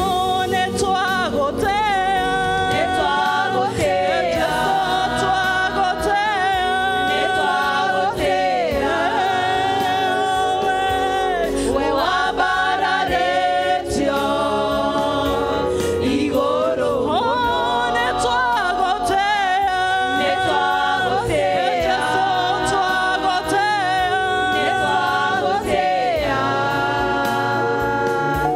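A women's gospel praise team singing together into microphones, their voices amplified through the church PA, with sustained, wavering sung lines throughout.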